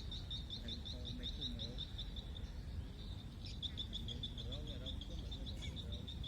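A high, rapid chirping animal call, about seven chirps a second, that breaks off for about a second midway and then resumes, over a low steady background rumble.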